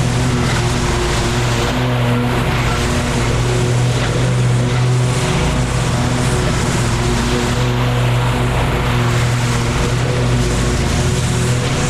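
Petrol lawn mower engine running at a steady speed with an even hum.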